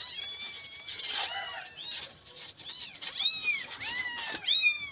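Young kittens mewing: short, high-pitched mews that rise and fall, about one a second, with the loudest near the end.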